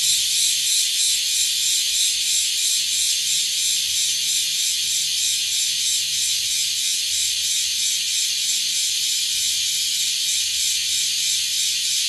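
Cicada song: a steady, high-pitched shrill buzz with a fast flutter in it.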